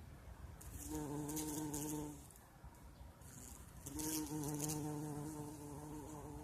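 Bumblebee buzzing while foraging on flowering currant bushes. It gives two bouts of a steady low hum: one about a second in lasting about a second, and another starting about four seconds in that carries on.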